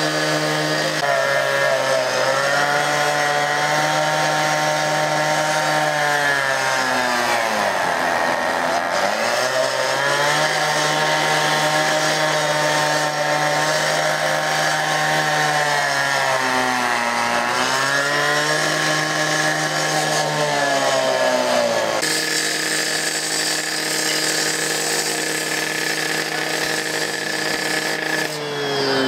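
Gas-powered cut-off saw with an abrasive disc running at high speed and cutting through metal fencing. Its engine note dips twice as the blade bites and the engine is loaded, then picks back up. Near the end the sound changes abruptly to a harsher grinding.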